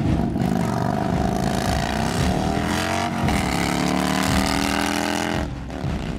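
Motorcycle engines accelerating hard down a drag strip, the engine pitch climbing, dipping once about three seconds in and climbing again. The sound changes abruptly near the end.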